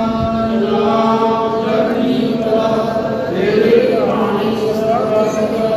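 A Sikh congregation chanting together in a gurdwara, with long held, pitched notes that glide between tones.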